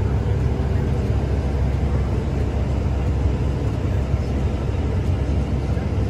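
New Holland combine running steadily while harvesting wheat, heard from inside the cab: a constant, mostly low sound of engine and threshing machinery.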